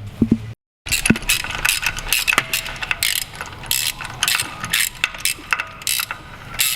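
Ratchet wrench clicking in quick, repeated strokes as bolts are run back in while the engine is reassembled after a valve clearance check.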